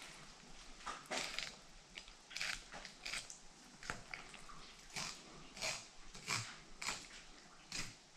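Fillet knife cutting through northern pike flesh in short strokes, about one every two-thirds of a second.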